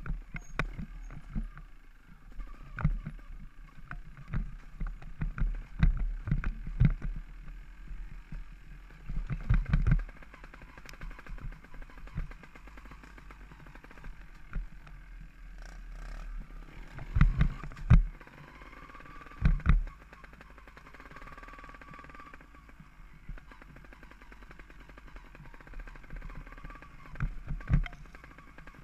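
Rattling knocks and thumps of an off-road bike jolting over a rocky trail, heard through a bike- or helmet-mounted camera, over a steady low rumble of wind on the microphone. The hardest jolts come in clusters, the heaviest about halfway through.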